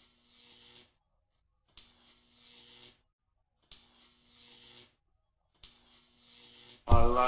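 An electric zapping effect loops about every two seconds: a sharp click, then roughly a second of hiss over a faint hum. Near the end a loud male voice cuts in with long, held, sung-sounding tones.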